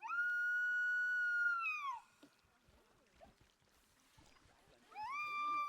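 Coyote howling: two long, steady howls, each rising quickly at the start and falling away at the end, the second beginning about five seconds in. This is the coyote's long-distance call to its pack.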